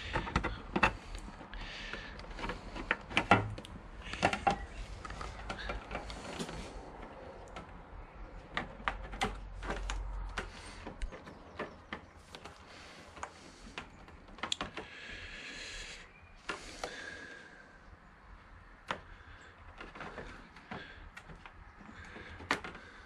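Scattered light clicks, taps and knocks of a screwdriver and fingers working a rubber well nut through the hole in a motorcycle fairing and plastic screen, with the plastic panels flexing and knocking together. There are a couple of longer scrapes about two-thirds of the way in.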